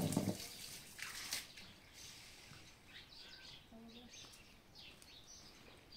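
A brief loud rush of noise at the start, then faint, short bird chirps over a quiet outdoor background.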